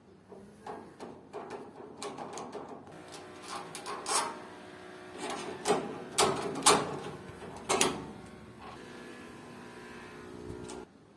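Metal clinks, knocks and scraping from work on a door latch, as a piece of iron is fitted in as a shim, with the loudest knocks in the middle. A steady hum comes in near the end and cuts off suddenly.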